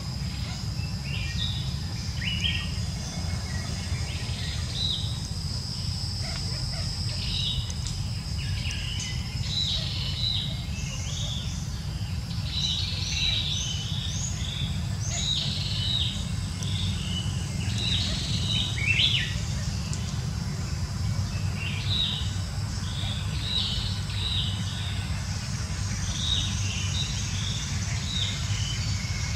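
Birds chirping in short, repeated bursts, over a thin steady high insect drone and a low steady rumble.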